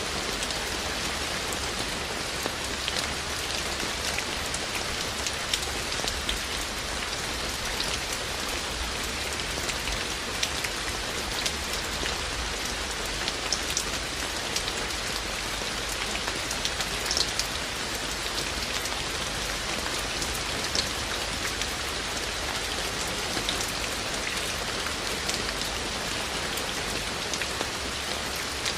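Steady rain falling, with many separate drops ticking sharply close by over the even hiss.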